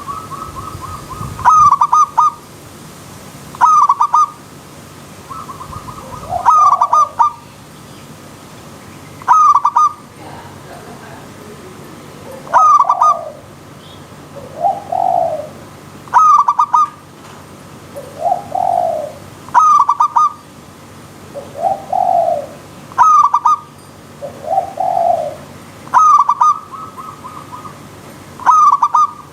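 Zebra dove (perkutut) singing its repeated cooing phrase. A quick pulsed note is followed by a lower coo, about once every three seconds. From about halfway, separate lower coos fall between the phrases.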